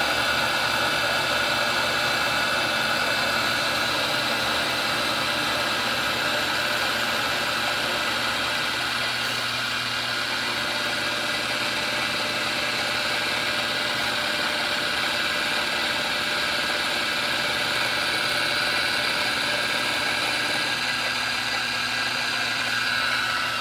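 Milling machine running with its cutter taking a pass through a gun's guide rod housing, a steady mechanical whine with a constant high ring over the cutting noise.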